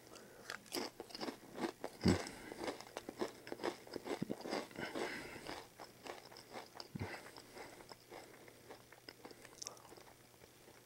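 Potato chips being crunched and chewed close to the mouth: a quick run of crisp crunches for the first several seconds, thinning to fainter, sparser chewing near the end.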